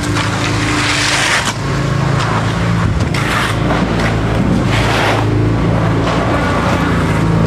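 A diesel engine running steadily under load, with repeated scraping washes of wet concrete being moved every second or two.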